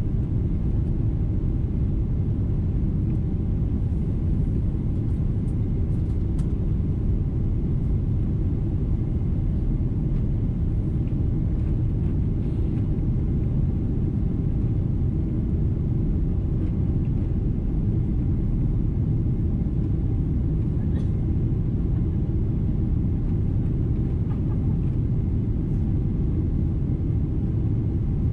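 Steady low rumble of a Boeing 777-200 airliner's engines and airflow heard inside the cabin by the wing, on final approach with the flaps extended.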